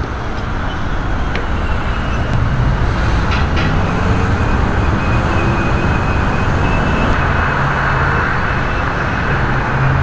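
Steady noise of passing road traffic, getting a little louder from about three seconds in.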